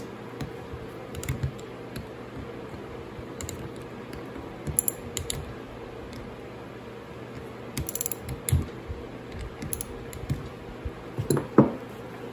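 Small hand ratchet clicking in short bursts as bolts are backed out of a Powerglide transmission valve body, with light metal clinks of bolts and tools; the loudest, ringing clink comes near the end.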